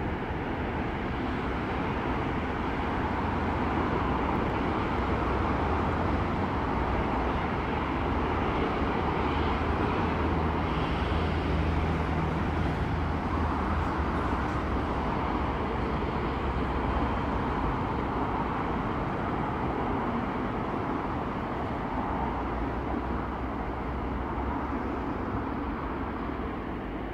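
EMD G16 diesel-electric locomotive's engine running with a steady low hum, mixed with an even rushing noise.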